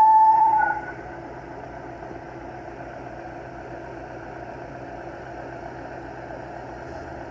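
Renault Duster 2.0 16V four-cylinder engine idling, with a loud steady whistle that dips in pitch and cuts off under a second in, leaving only the quieter idle. The whistle is the engine noise the owner traces to a failed intake-manifold breather (anti-flame/PCV) valve that blocks the flow of crankcase oil vapour.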